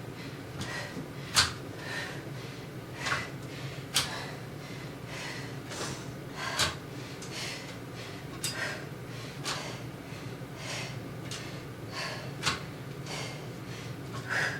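A woman breathing hard during dumbbell renegade rows, with short sharp exhales about once a second and a few sharper, louder knocks among them.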